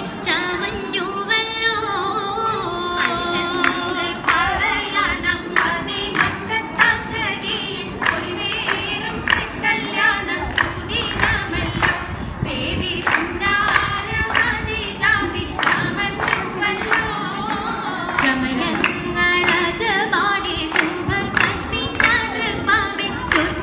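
Oppana song sung by a group of voices, with hand claps keeping time about twice a second.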